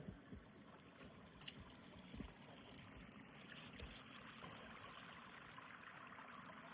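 Faint running creek water, with a few soft low thumps in the first couple of seconds.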